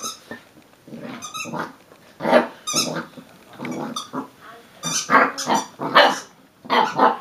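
A black Labrador puppy barks and growls in short, repeated outbursts at a squeaky toy ball she is pawing and mouthing. The toy gives a few high squeaks in the first few seconds.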